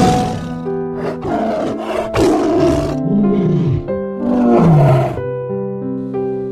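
A big cat roaring in several rough bursts, the longest lasting about two seconds, over background piano music.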